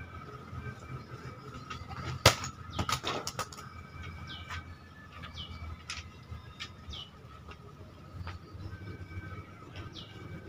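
A sharp chop as a homemade katana slices through a tossed section of banana trunk, followed by a few lighter knocks as the pieces land. A bird calls several times with a short falling whistle.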